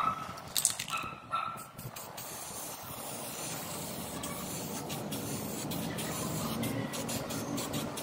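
Aerosol can of chrome spray paint hissing as it is sprayed, in short spurts at first and then a longer, steadier spray. A brief high whine sounds about a second in.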